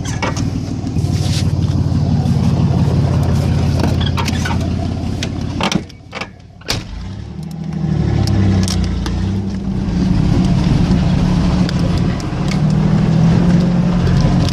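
1992 Chevy Silverado 1500 pickup running as it drives over rough ground, its engine note shifting in pitch, with scattered knocks and rattles. Everything drops away briefly about six seconds in, then the engine comes back.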